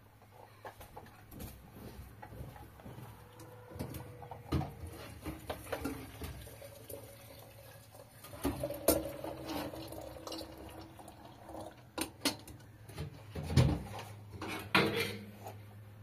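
Metal kettle and teapot clinking and knocking as they are handled and set down on a sheet-metal stove top, in scattered strikes. The loudest knocks come near the end.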